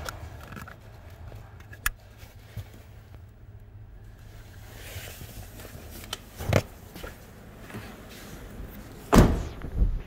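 Plastic fuse box cover being refitted under a car's dashboard, with sharp clicks as it snaps into place. Scattered knocks follow, and a heavier thump comes near the end.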